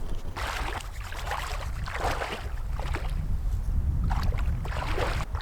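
Icy lake water splashing and sloshing in irregular surges around a person plunging into it, over a steady rumble of wind on the microphone.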